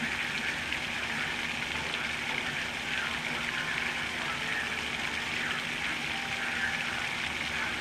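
Torrential hurricane rain pouring down steadily onto a flooded street and yard: a dense, even hiss that neither builds nor stops.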